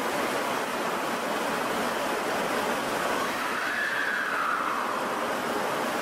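Steady rushing hum of an Osaka Metro Midosuji Line subway train standing at an underground platform with its doors open, blended with the station's ventilation noise. A faint tone rises and then falls about three and a half seconds in.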